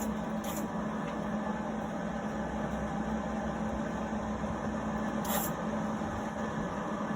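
Arc welder running, a steady crackle over a low electrical hum, as a weld is laid on an exhaust pipe. A brief click comes about five seconds in.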